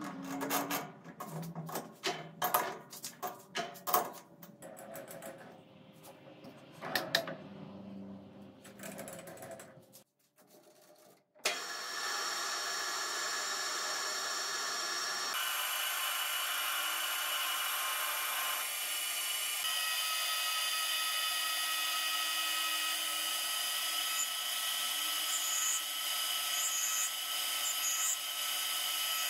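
Metal clicks and clanks as a steel rod is clamped in a three-jaw lathe chuck with the chuck key. After a brief pause, a metal lathe starts about eleven seconds in and runs with a steady whine while a carbide turning insert cuts grooves into the spinning rod.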